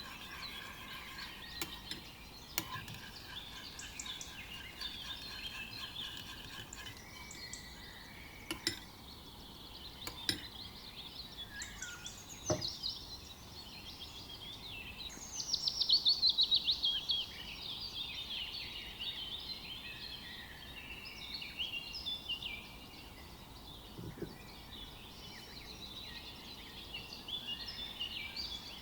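Songbirds singing and chirping continuously, with a loud rapid trill falling in pitch about halfway through. A few sharp clinks of kitchen utensils against dishes or glass.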